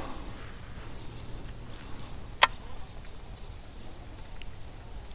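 Faint, steady high-pitched insect chirring from the pond's surroundings, with one sharp click about halfway through and a couple of fainter ticks after it.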